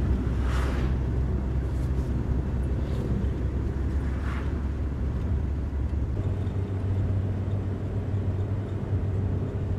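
Engine and road noise inside a moving van's cabin, a steady low drone whose engine note shifts about six seconds in. Two brief rushes of noise come about half a second and four seconds in.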